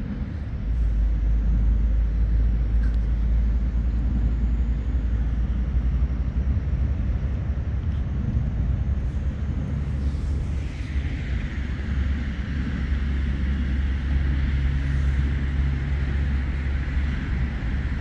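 Outdoor wind rumbling on the microphone, low and steady throughout. About ten seconds in, a steady higher hiss joins it.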